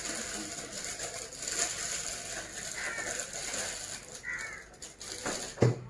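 Thin plastic piping bag crinkling and rustling as it is handled and folded down over the rim of a drinking glass. A single sharp knock near the end, the loudest sound.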